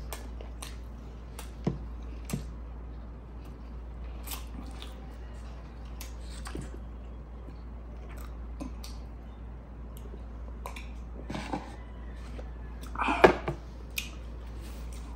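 Close-up chewing and mouth sounds of a person eating rice and grilled chicken, with scattered small clicks and smacks. A louder burst of sound comes near the end.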